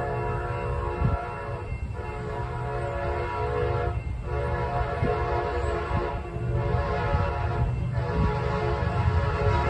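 Amtrak P42DC diesel locomotive's chord air horn sounding a series of long blasts with short breaks between them, over a low rumble.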